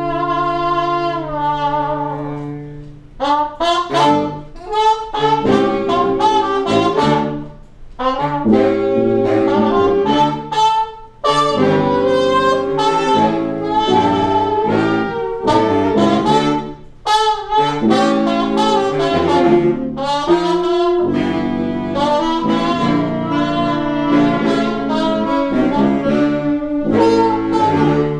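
Horn band of saxophones, baritone saxophone, sousaphone and trumpet playing an instrumental tune: a held chord for about the first three seconds, then short, punchy notes in rhythm.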